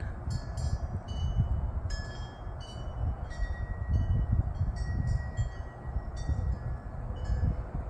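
Wind chimes tinkling on and off in a breeze, clear ringing notes every half second or so, over a steady low rumble of wind on the microphone.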